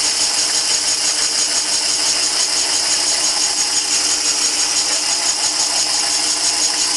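Cylinder boring bar running, its cutter scraping the bore of a two-stroke cylinder in a steady, rapidly pulsing, high-pitched metallic rattle over the hum of the bar's motor. The cutter is hit or miss, touching only one side of the worn bore and knocking off carbon and small bits of rust on a first light pass.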